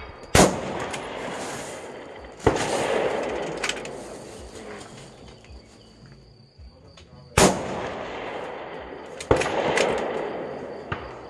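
Loud precision-rifle shots at a shooting range: four sharp reports in two pairs, one about half a second in and another two seconds later, then again past seven seconds and near nine seconds. The second shot of each pair leaves a long rolling echo that dies away over a few seconds.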